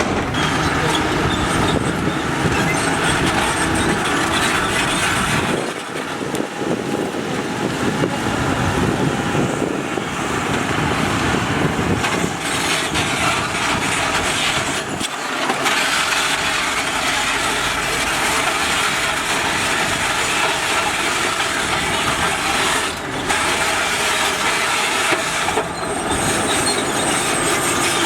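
Heavy earthmoving machinery running and working, a continuous loud mechanical din of diesel engines with clanking and grinding, dipping briefly about six, fifteen and twenty-three seconds in.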